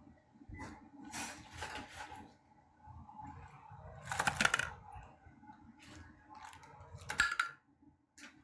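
Handling noises from unboxing the vacuum cleaner: several bursts of rustling and knocking as parts and packaging are moved. The loudest comes about four seconds in, with a sharp knock about seven seconds in.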